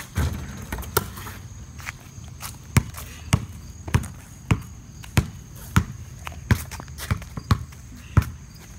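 A basketball bouncing on concrete: a thump at the start and another about a second in, then steady dribbling, a little under two bounces a second, from about three seconds in.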